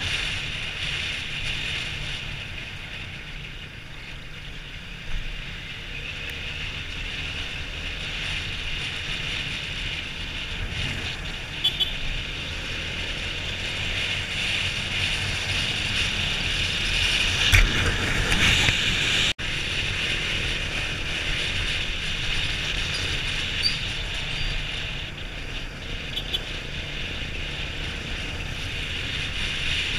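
Yamaha Sniper underbone motorcycle's single-cylinder four-stroke engine running steadily on the road, heard from the bike itself under a constant rush of wind on the microphone. A louder gust of noise comes a little past halfway.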